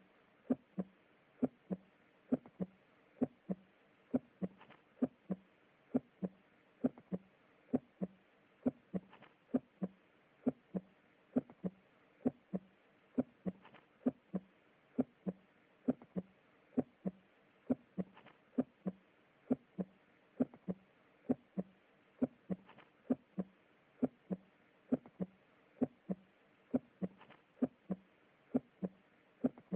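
Normal human heart sounds on auscultation: the first and second heart sounds ("lub-dub") beating in a steady, regular rhythm of about one beat a second. These are physiological heart sounds with no murmur.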